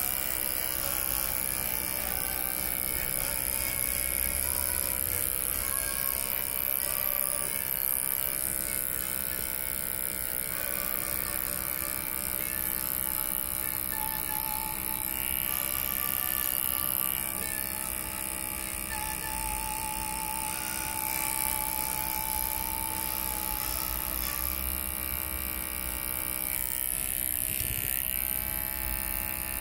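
Electric hair clipper buzzing steadily as it trims the neckline and edges of a skin fade, with background music playing.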